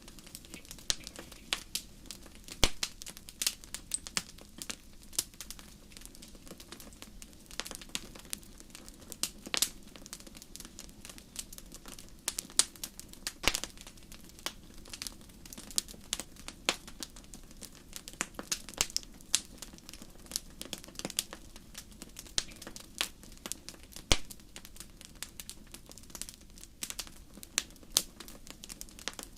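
Wood fire burning in a fireplace: irregular crackles and sharp pops of burning logs, many a second and uneven in strength, over a soft low hiss of the flames.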